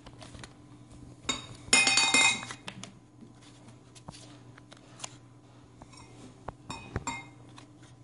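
Serving utensil clinking against a dish while shredded chicken is spooned out, with one loud ringing clink about two seconds in and lighter taps and clicks after it.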